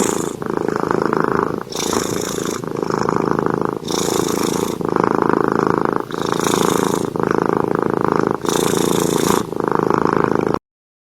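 Kitten purring loudly and close, its purr rising and falling with each breath about once a second; it cuts off suddenly near the end.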